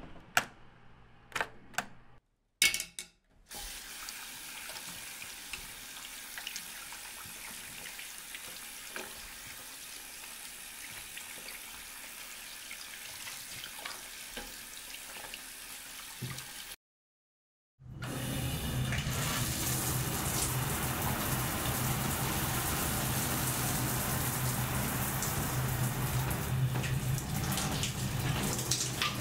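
A few sharp knocks in the first seconds, then a bathroom tap running steadily into a sink as a screwdriver is rinsed under it. After a second of silence about halfway through, louder running water with a low hum: a shower spraying.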